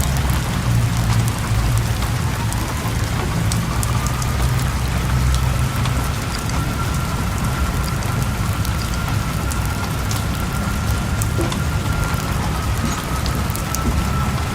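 Heavy rain falling, many sharp drop hits over a steady low rumble, with a faint steady high whine underneath.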